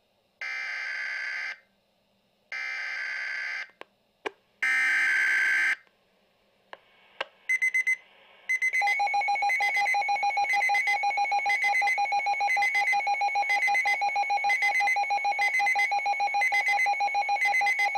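Emergency alert system signal: three buzzy bursts of digital data tones, each about a second long and about a second apart, then a few clicks. About halfway through, a loud electronic alert tone starts and beeps rapidly and evenly to the end, the attention signal that comes before the weather bulletin.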